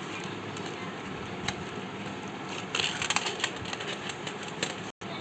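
Small clicks and light rattles from handling laptop parts, with a quick cluster of them a little past the middle, over a steady background hum.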